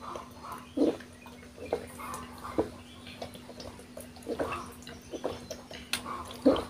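A person gulping down a drink close to the microphone: a series of wet swallows about a second apart, the loudest near the end.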